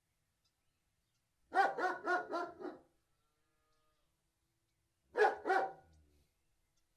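Large Alsatian (German Shepherd) barking: a quick run of about five barks, then a pause and two more barks.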